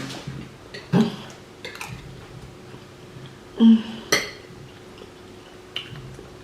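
Cutlery clinking and scraping against plates while eating, a few separate clinks and knocks, with one louder short sound about three and a half seconds in.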